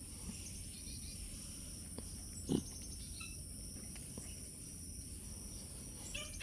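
A pig's happy grunt: one short low grunt about two and a half seconds in, over a faint steady background.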